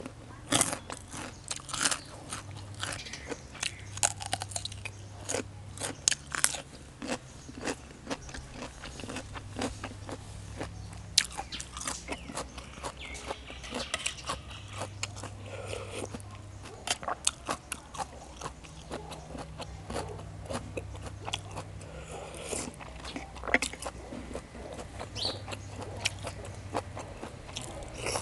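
Close-miked chewing and biting of crisp food, beef-tripe salad and raw vegetables: a continuous run of sharp, wet crunches all through.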